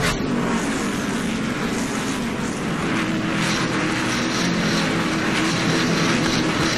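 NASCAR stock cars' V8 engines at racing speed as several cars pass close by a track-level camera, giving a loud, continuous, dense engine sound.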